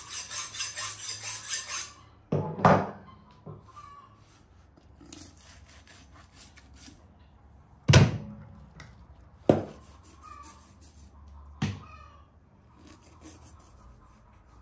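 A kitchen knife being sharpened, steel scraping quickly on steel for about two seconds. Then come four sharp knocks on a wooden table as the knife and the lamb ribs are handled; the loudest is about eight seconds in.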